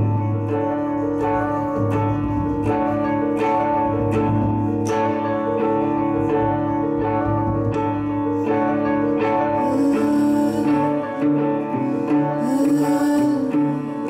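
Instrumental music: an electric guitar plays sustained, ringing notes over a slow, steady beat on a large frame drum struck with a padded mallet. Near the end the notes begin to bend in pitch.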